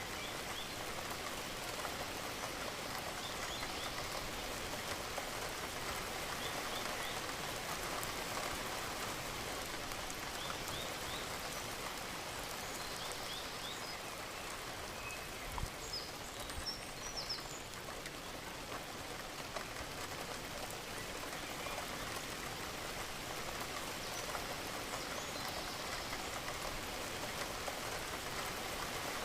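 Steady rain falling and pattering on surfaces, with a few faint high chirps and one brief low thump about halfway through.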